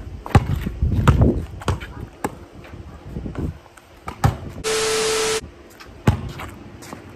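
Basketball bouncing on a concrete driveway: several dribbles in the first two and a half seconds, then two single thuds a couple of seconds apart. Near the middle, a short steady hiss with a low hum under it starts and stops abruptly after under a second.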